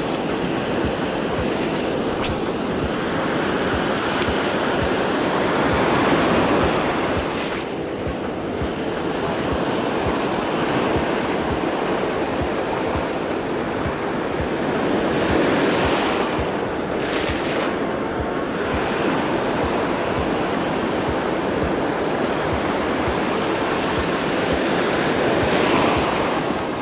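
Sea surf breaking and washing up the beach, swelling about every ten seconds, with wind buffeting the microphone.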